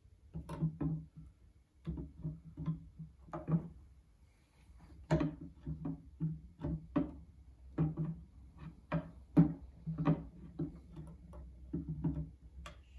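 Heavy resin statue parts knocking and clunking against each other and the rock base as the figure is fitted onto it: a run of irregular short knocks, sometimes two or three a second, each with the same low, hollow ring.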